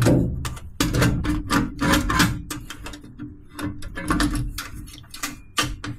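Steel exhaust pipe section with a braided flex joint clinking and knocking against the car's underside and header as it is offered up for a test fit: a quick, irregular run of light metallic knocks that thins out toward the end, over a steady low hum.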